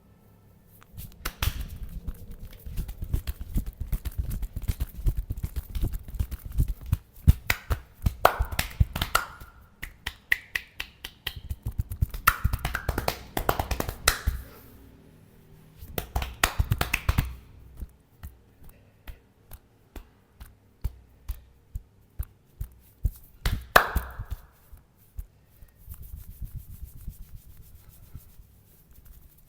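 Massage percussion: fast rhythmic slaps and taps of the masseur's hands on the body, coming in bursts of quick strikes with short pauses and sparser taps between them.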